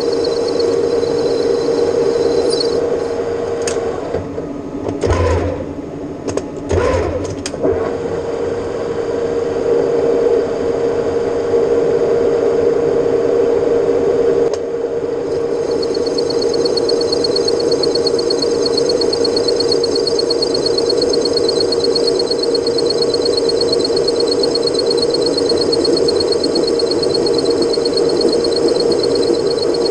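Metal lathe running while turning stainless steel, with a steady hum from its drive. A fine high hiss drops out about two and a half seconds in and comes back about halfway through. Two low knocks come around five and seven seconds in.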